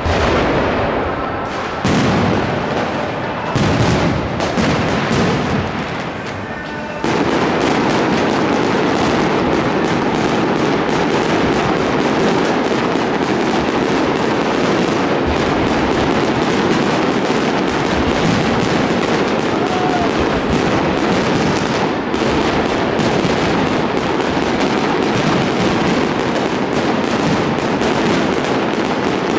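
Fireworks display: separate shell bursts with booms over the first several seconds, then from about seven seconds in a dense, continuous crackle of many rapid bursts.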